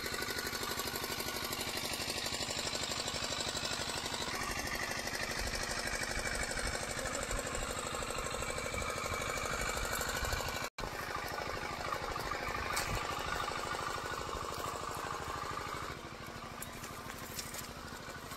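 A small engine running steadily with a fast, even knocking beat. The sound cuts out for an instant about eleven seconds in and is a little quieter from about sixteen seconds on.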